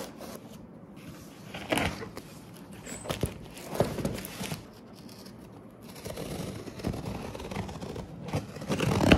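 Cardboard shipping box being handled and its packing tape slit with a box cutter: scattered scrapes and knocks, then a longer rough scraping stretch in the second half, loudest just before the end.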